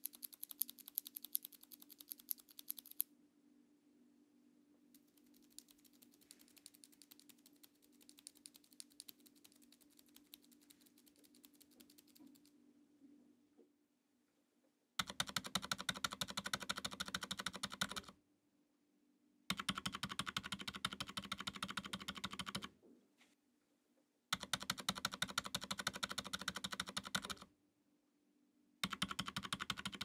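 Gazzew Boba U4 62g silent tactile keyboard switches. First two loose switches, one factory-lubed and one lubed with Krytox 205g0 and filmed, are pressed quickly between the fingers, loud for the first three seconds and fainter after; the factory-lubed one is a little scratchy. Then typing on a 60% plastic-case keyboard fitted with these switches, in three bursts of about three seconds with short pauses and a fourth starting near the end.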